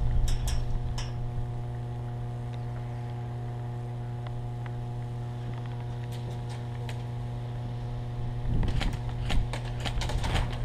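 Steady electrical hum, a low drone with a stack of even buzzing tones above it. A few light clicks and gear rustling come at the start and again from about eight and a half seconds in.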